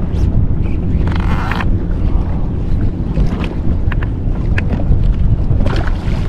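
Wind buffeting the microphone over a steady low rumble of water around a jet ski. There is a short rushing burst about a second in, and near the end a hooked snapper thrashes and splashes at the surface beside the ski.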